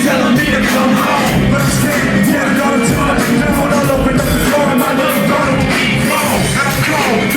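Loud live concert music with a steady drum beat and shouted vocals.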